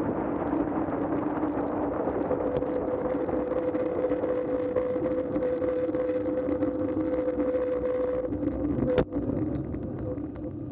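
Wind and road noise from a kickbike coasting down an asphalt road, with a steady hum through it. A single sharp knock comes about nine seconds in as it slows to a stop, and the noise then fades.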